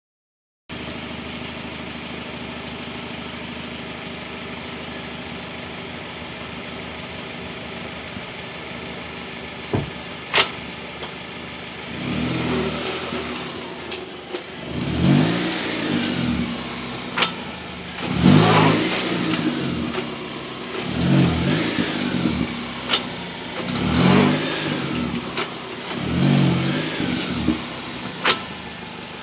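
Car engine idling steadily. The car then rolls forward and back several times, and the sound swells and fades with each move. A few sharp clicks run through it. The owner hears a rocking-chair-like creak from the right front wheel when moving forward, reversing or downshifting.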